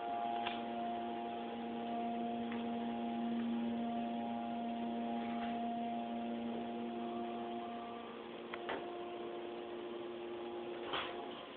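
Schindler holeless hydraulic elevator running upward, with a steady hum of several tones. About eight seconds in, part of the hum drops away as the car slows to level at its floor, and a couple of short clicks follow.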